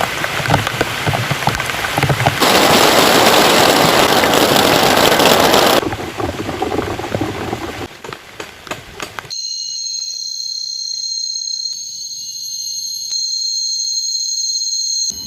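Heavy rain pattering and pouring, loudest from about two to six seconds in. About nine seconds in it cuts off suddenly, giving way to a steady, high-pitched sound of several held tones.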